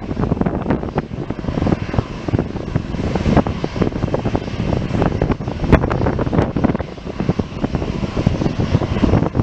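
Wind buffeting the microphone in irregular gusts over a continuous low rumble.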